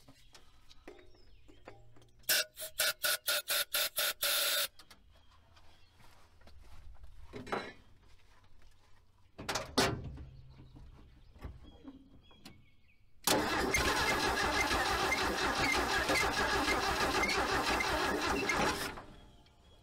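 Starter cranking the Ford 300 cubic-inch inline six for about five and a half seconds in the second half, then stopping suddenly without the engine running. The engine is primed with gas poured into the carburetor, because fuel is not reaching it. Earlier comes a shorter burst of about ten quick, even pulses.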